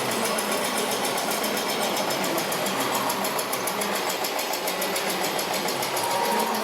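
Small electric motors and gearboxes of radio-controlled model vehicles running steadily, with a fast, even ticking.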